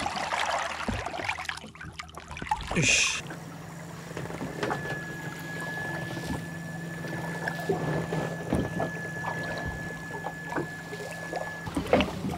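Water splashing and sloshing as a fish is lowered by hand into the river and released, ending in a short sharp splash about three seconds in. After that comes a quieter stretch with a low steady hum and a thin, steady high tone held for about seven seconds.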